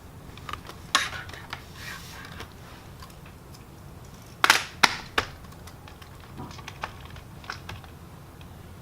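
Light clicks and taps on a laptop, a cluster of three sharper ones about halfway through, over a low steady hum.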